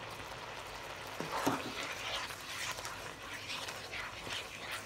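Pineapple sauce bubbling in a wok as it thickens with potato starch, stirred with a spatula, with a brief whine-like sound about a second and a half in.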